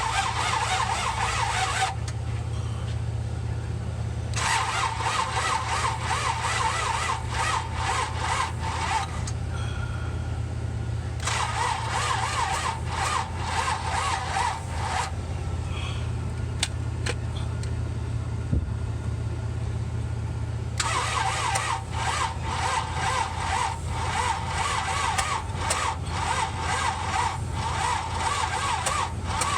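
1966 Buick Riviera GS V8 being cranked over by the starter in four bursts of a few seconds each, turning over evenly but never catching: a crank-no-start despite starter fluid. A steady low hum runs underneath.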